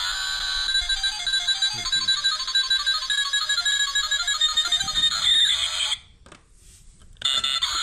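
A toy motorbike's built-in sound chip playing a tinny electronic tune of short stepped notes through a tiny speaker. It cuts out about six seconds in and starts again about a second later.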